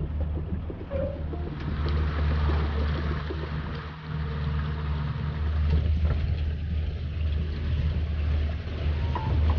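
Shanty boat's gas engine running steadily at cruising speed, a constant low drone with a hiss of water and wind over it.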